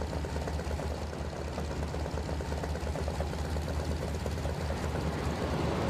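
Junkers Ju 52 trimotor's radial piston engines running in flight: a steady low drone with a fast pulse, growing a little louder near the end.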